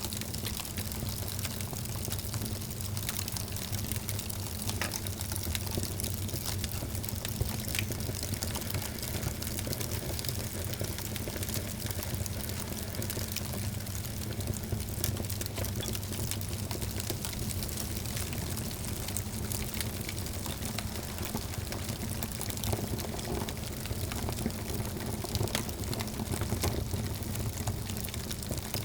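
Fireplace fire crackling, with frequent small pops and snaps over a steady low roar.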